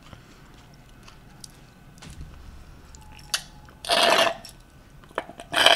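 Soft chewing and small clicks, then two loud slurps through a straw, about four seconds in and again near the end, as the last of a cocktail is sucked up: the slurp of an emptied glass.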